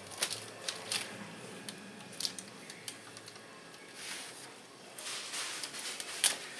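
Knife carving a smoked spatchcocked chicken on a wire rack: slicing and scraping through skin and meat, with a few sharp clicks and a louder click near the end.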